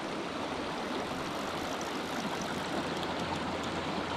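Shallow rocky creek running over riffles, a steady even rush of water. A faint low steady hum lies underneath.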